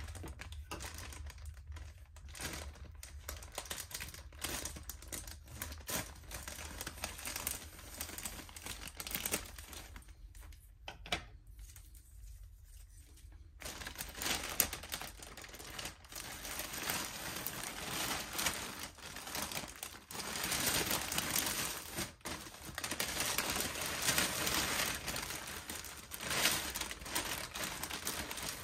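Plastic mailer bag crinkling as it is handled and opened: scattered crackles at first, then denser, louder rustling of plastic packaging from about halfway through.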